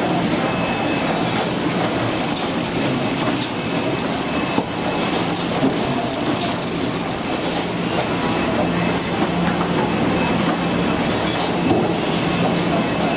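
Automatic hamburger flow-wrapping machine and its infeed conveyor running steadily: a continuous mechanical din with a low steady hum and light, irregular ticks.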